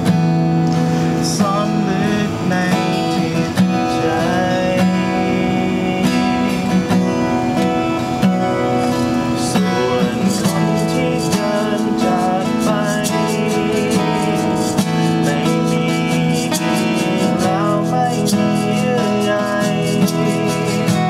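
Acoustic guitars playing a slow song, strummed chords under picked melody notes.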